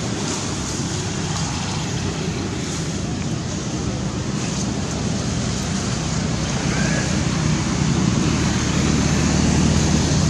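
Steady outdoor background noise: wind on the microphone over a low hum, growing a little louder over the last few seconds.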